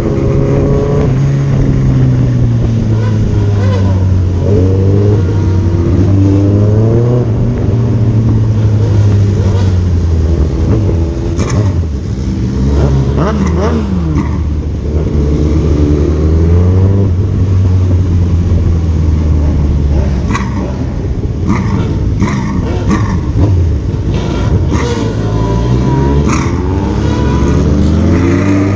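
Motorcycle engine heard from the rider's own bike, repeatedly rising in pitch as it accelerates and dropping back as it eases off or shifts gears, over a constant rush of wind and road noise.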